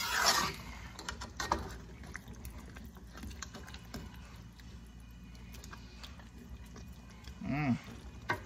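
A metal utensil stirring and scraping through a pot of thick stew, with a scrape at the start and a few light clicks against the pot. A short hummed voice sound comes near the end.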